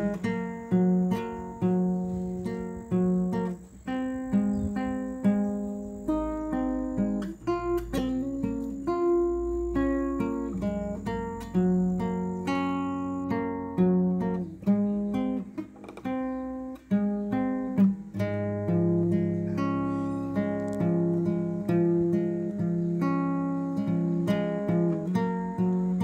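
Background music on acoustic guitar: single notes plucked one after another over lower notes left ringing.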